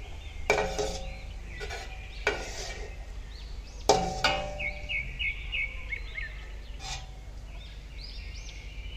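A metal spoon scraping and clanking against a pot of hot oil as fried golden-brown onions are lifted out, with several sharp clanks, the loudest about four seconds in. Birds chirp in the background.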